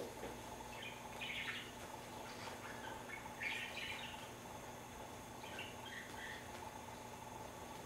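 Faint scuffling of a kitten clawing and wrestling a stuffed toy on a wood floor, in three short bursts about a second, three and a half and six seconds in, over a steady low hum.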